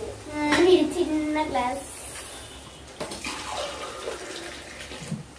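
Water pouring and splashing, mostly in the second half, as water is added for the pav bhaji gravy.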